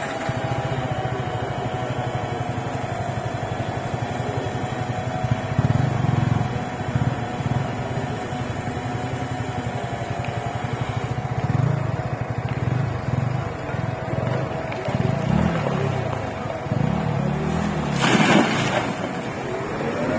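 An engine running steadily with a fast pulsing rumble, its pitch wavering briefly, and a short loud rush of noise about eighteen seconds in.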